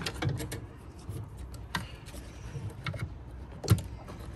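Irregular clicks and knocks as the ABS pump unit is worked by hand into its mounting bracket, with one louder knock near the end.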